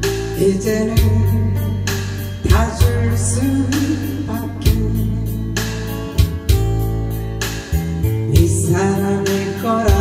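A woman singing a Korean trot song live into a microphone, with acoustic guitar over a backing track that has a steady bass and beat.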